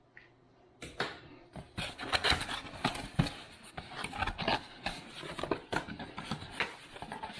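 Cardboard packaging being handled and opened: irregular rustling, scraping and small knocks as the tab is pulled and the cardboard lid and sleeve slide apart, starting about a second in.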